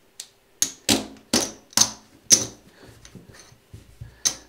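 Casino chips being set down one at a time on a craps table's felt, a series of sharp clacks about two a second, fewer and fainter in the second half.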